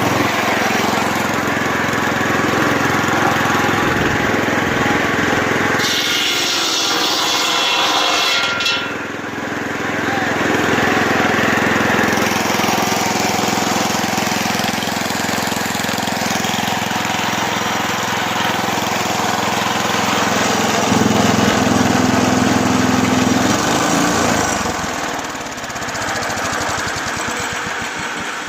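Engine-driven old farm saw running steadily and loudly, with a harsher, higher-pitched stretch lasting a few seconds about six seconds in.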